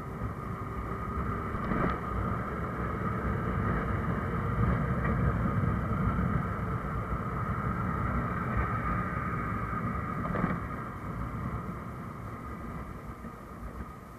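Motorcycle engine running as the bike rides along a street, with wind rush on the microphone. It grows louder through the middle and eases off near the end, with two brief clicks.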